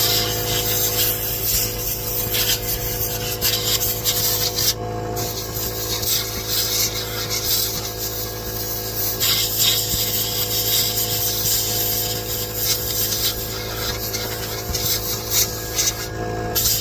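Repeated rasping scrapes, like rubbing or filing on a surface, in long stretches with brief breaks about five seconds in and near the end, over a steady background hum.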